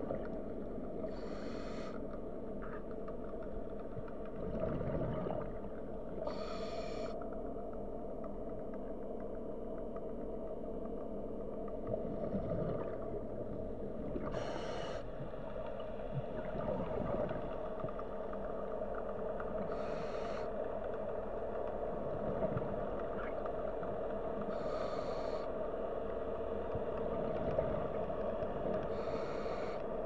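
Underwater recording of a scuba diver breathing: exhaled bubbles rush out of the regulator in short bursts about every five seconds, over a steady low underwater hum.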